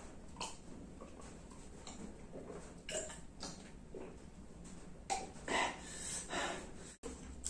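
A man's mouth and breath noises while drinking and eating: swallowing, chewing and puffing out breath against the heat of a spicy sambal. Short separate sounds are scattered through, the loudest a little past five seconds in.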